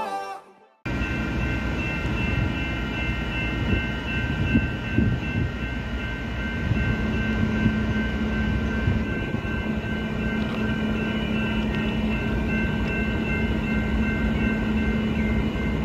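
Diesel-hauled train approaching in the distance: a steady rumble with a low engine drone that comes in about six seconds in, over several steady high tones.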